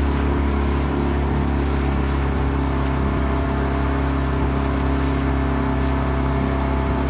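Outboard motor of an inflatable boat running steadily, a constant low engine drone with a hiss of water and wind over it.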